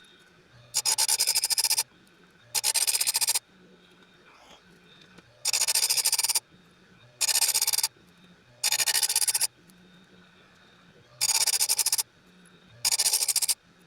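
Chainsaw chain being sharpened on a chain grinder, each cutter tooth ground in turn: seven short grinding bursts of about a second each, one tooth every second or two.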